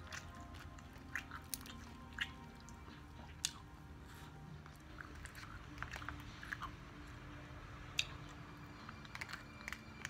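Quiet close-up eating sounds: a person chewing and biting fried perch with short crunches, and a plastic fork clicking and scraping in a plastic tub as food is scooped up.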